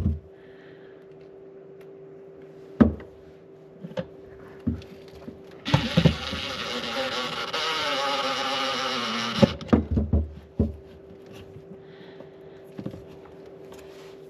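Knocks and clatter of parts being handled, then a cordless drill/driver runs for about four seconds, its motor pitch sinking as it loads up driving a screw, followed by more knocks.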